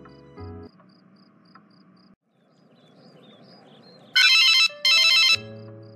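A mobile phone's text-message alert sounds twice, two bright, loud rings of about half a second each in quick succession, over crickets chirping steadily. Soft background music fades out at the start and comes back near the end.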